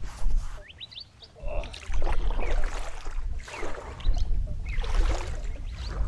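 Kayak paddle strokes swishing and splashing through creek water, repeated over and over, with a low rumble underneath. Birds chirp briefly about a second in and again near the end.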